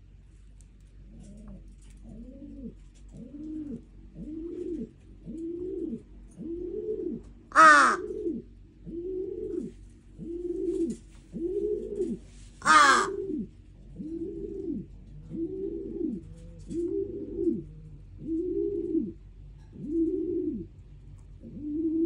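A crow giving a long series of low, soft cooing notes, about one a second, each rising and then falling. It breaks in twice with a loud, harsh caw, about a third of the way in and again just past halfway.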